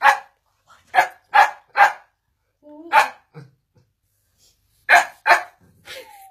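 Shetland sheepdog barking: about eight short, sharp barks in quick clusters of one to three, ending in a brief whine.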